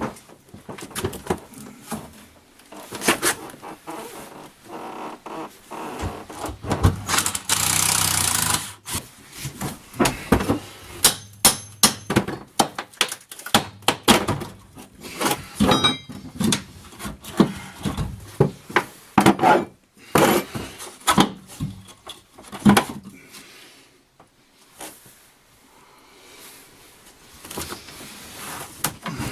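Hand-tool work on an RV toilet's closet flange: irregular knocks, clunks and scrapes, with a louder stretch of steady noise lasting about two seconds around seven seconds in and a brief metallic ring a few seconds later.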